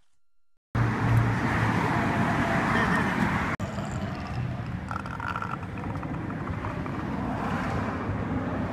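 Steady road traffic noise, starting just under a second in after a moment of near silence.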